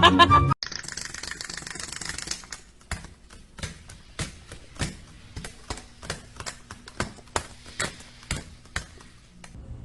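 Music cuts off about half a second in, followed by a short hiss, then a run of irregular sharp taps or clicks, about two to three a second.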